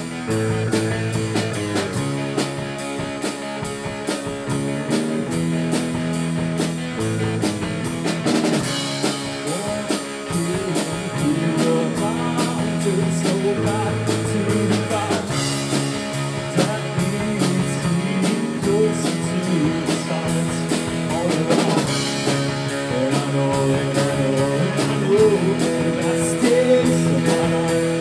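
A rock band playing: electric guitars, bass guitar and drum kit, with a man singing lead vocals over it from about eight seconds in.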